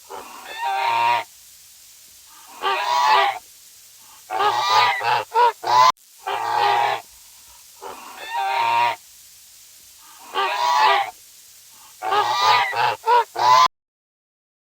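An animal calling about a dozen times, long calls mixed with quick short ones. The same sequence of calls seems to play twice and cuts off abruptly near the end.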